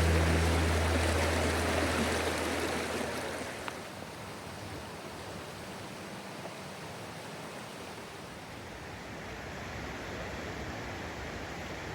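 The last held low chord of a song fades out over the first few seconds, leaving the steady rush of a stream.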